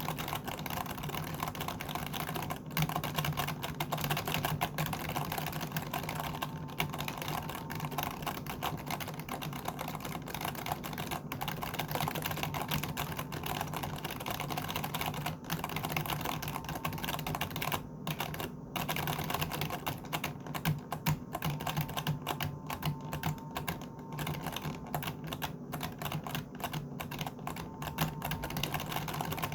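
Typing on a computer keyboard: a fast, continuous stream of keystroke clicks, with a short pause about two-thirds of the way through.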